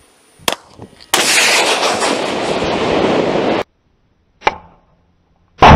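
Stugna-P anti-tank guided missile launches. A sudden loud blast is followed by a rushing noise that lasts about two and a half seconds and cuts off abruptly; a short sharp report comes a second later, and the loudest bang starts just before the end.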